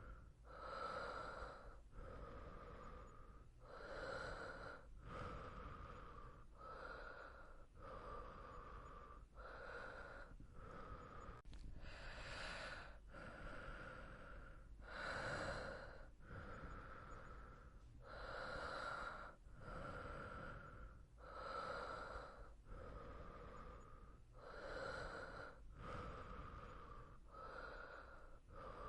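A person breathing softly and slowly as in sleep, breaths in and out following one another in an even rhythm, each about a second long. One breath about halfway through is a little louder.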